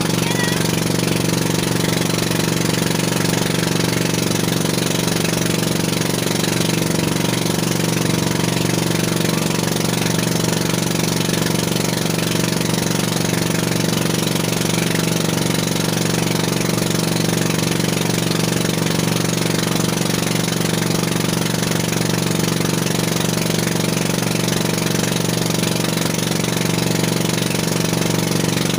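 A small fishing boat's engine running steadily while under way, an even drone that holds the same pitch throughout, over a constant hiss of water rushing past the hull.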